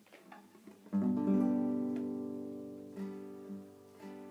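Acoustic guitar opening a song: a few faint string touches, then about a second in a full strummed chord that rings and slowly fades, followed by a few lighter strums.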